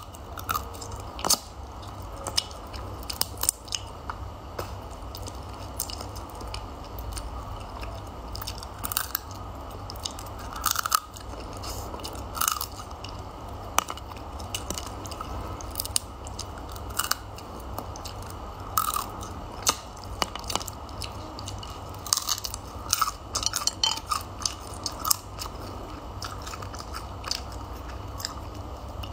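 Close-up chewing and biting on steamed crab meat, with irregular sharp crunches and clicks scattered throughout.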